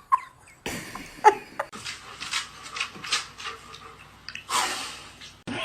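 A dog breathing in short noisy puffs, with a longer, louder puff about four and a half seconds in.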